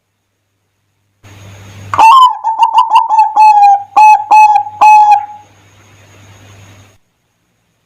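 Zebra dove (perkutut) singing one phrase of its cooing song: a quick run of short, clear notes, then a few separate notes, between stretches of silence.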